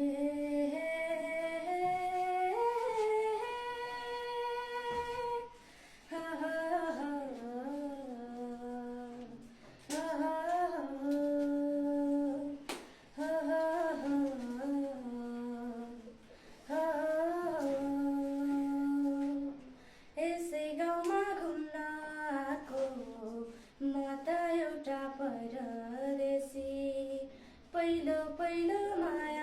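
A lone voice singing a melody unaccompanied, in phrases of a few seconds with short breaths between them, mixing held notes with quick wavering ornaments.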